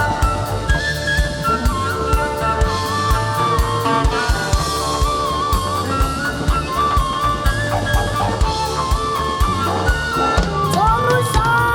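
Live rock band playing an instrumental passage: a drum kit keeps a steady beat under a melodic guitar line, with bending notes near the end.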